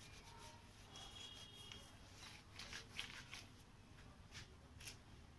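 Faint, short rubbing and rustling strokes of a cloth wiping marker off a whiteboard.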